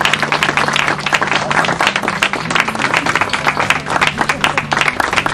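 A crowd of guests applauding, many hands clapping irregularly and steadily.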